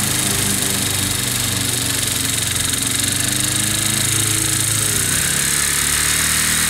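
Wolf-Garten ride-on mower running steadily under load as its blades cut tall, wet grass, with a high hiss over the engine note. The engine pitch shifts slightly about five seconds in.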